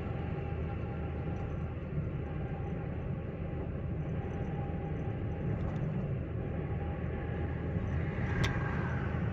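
Steady low cabin rumble of a Chevrolet Spin 1.2 LT cruising at highway speed, engine and tyre noise blended together. A single sharp click comes near the end.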